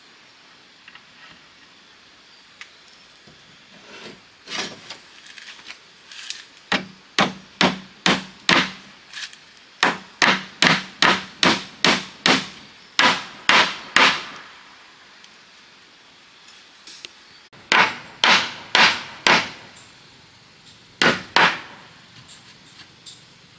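Hammer striking wood in runs of quick, evenly spaced blows, about two to three a second, with short pauses between the runs.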